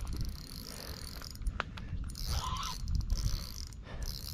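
Spinning reel cranked against a hooked carp, its gears whirring in spells with some clicking.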